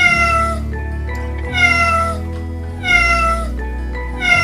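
A domestic cat meowing four times, about a second and a half apart, each meow falling in pitch, over steady background music.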